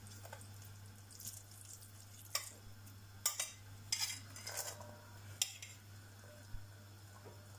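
A metal spoon scraping and clinking against a glass dish and a stainless steel mixing bowl, as cooked buckwheat is spooned onto minced chicken: a series of short, faint scrapes about a second apart.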